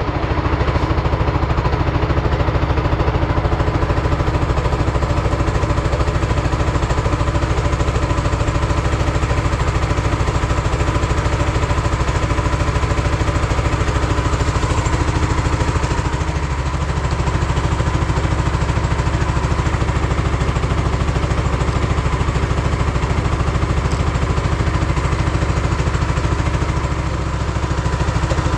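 Small petrol engine running steadily at a constant speed, with a fast even pulse and a hum; the level dips slightly twice, about halfway and near the end.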